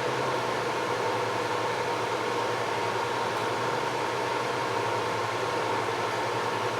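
Steady whir and hiss of cooling fans running at an even pitch, with a faint steady hum underneath, while an amplifier is driven into an amp dyno at full power.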